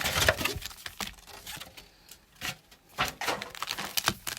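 Crinkling and rustling of foil booster packs and cardboard box packaging being handled, dense for about the first second, then a few separate taps and rustles.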